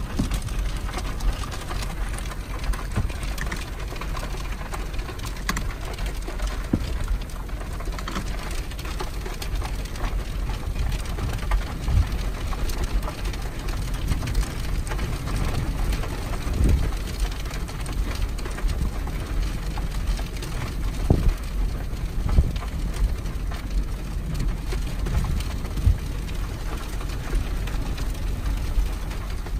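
Rain spattering close to the microphone over a steady low rush of wind, with many scattered sharp taps of drops.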